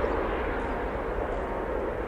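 Airbus A350 jet engine noise, a steady rushing sound with low rumble, slowly getting quieter.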